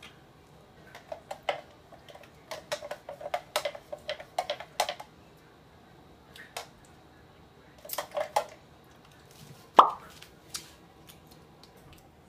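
Handling of a plastic juice jug: scattered light taps and clinks, then one sharp plop just before ten seconds in. No motor is running.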